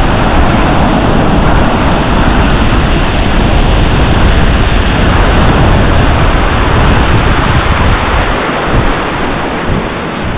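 Loud, steady wind noise on the microphone over the wash of surf breaking on the beach, easing a little near the end.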